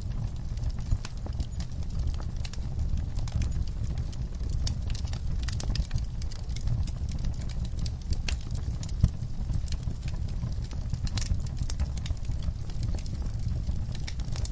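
Fire crackling and popping in irregular clicks over a steady low rumble, with one sharper pop about nine seconds in.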